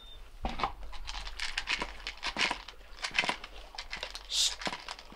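Two dogs eating dry kibble from a plastic slow-feeder bowl: an irregular run of crunches and clicks as the kibble is chewed and knocks against the plastic, with a short hiss about four seconds in.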